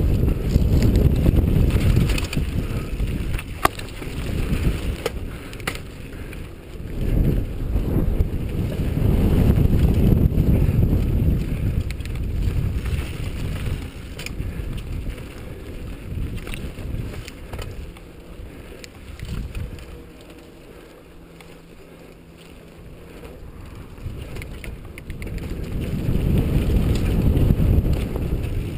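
Mountain bike riding fast down a dirt singletrack: wind buffeting a GoPro's microphone and tyres rumbling over the dirt, with a few sharp knocks from bumps. The rumble eases for a few seconds about two-thirds through, then builds again near the end.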